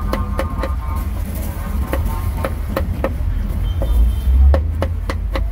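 Cleaver chopping cooked pork on a thick wooden chopping block: quick, sharp strikes about three a second, uneven in spacing, with a short cluster of fast chops near the end.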